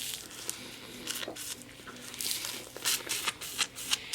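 Thin plastic ice-pop sleeve crinkling in the hand, in short scrunches that come thicker in the second half.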